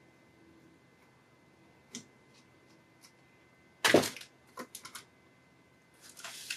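Hands working on a power supply's internal parts: a few faint clicks, then a sharp clatter just before four seconds in and several lighter knocks after it.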